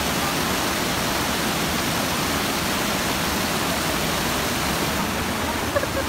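Waterfall: white water pouring down over rocks, a steady, even rush of noise.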